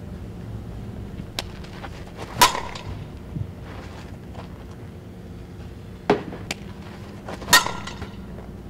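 Softball bat hitting tossed balls in batting practice: two sharp pings with a brief ringing tail, about five seconds apart, one about two and a half seconds in and one near the end. Fainter knocks fall between them.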